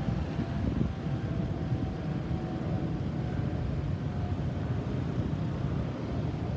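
Airbus A320-214 jet airliner flying over, its CFM56 turbofan engines heard as a steady low rumble with a faint whine on top.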